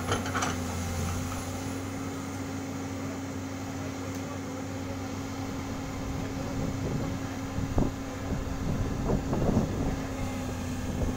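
Komatsu PC200 hydraulic excavator's diesel engine running steadily with a constant low hum, while its bucket dumps soil with a brief clatter at the start and a few knocks later.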